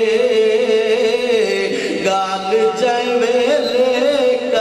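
A man's voice chanting a poem in a sung, melodic style, holding long wavering notes that step up and down in pitch.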